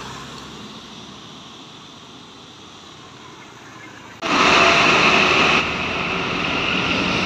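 Toyota HiAce minibus driving away, its engine and tyre noise fading out. About four seconds in, a cut to loud roadside traffic: engines of a minibus, a pickup and motorbikes passing close by.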